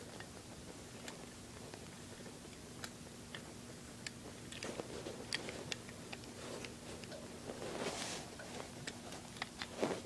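Faint scattered clicks and rustling as fingers work the small metal and plastic parts of an air compressor pressure switch, hooking its spring into place. A faint steady hum runs underneath.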